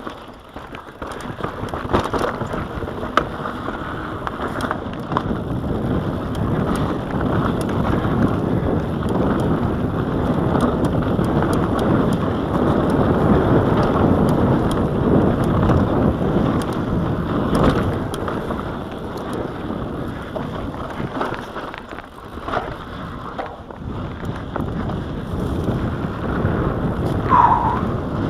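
Mountain bike descending a rocky dirt trail, heard from a camera on the bike: wind rushing over the microphone and tyres rolling on dirt, with the bike rattling and clicking over rocks and bumps. A brief squeak near the end.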